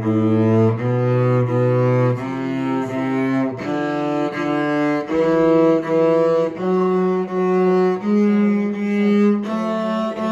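Cello playing the melodic A minor scale upward, one bowed note at a time, each held a little under a second and rising step by step, with F and G raised to F sharp and G sharp on the way up.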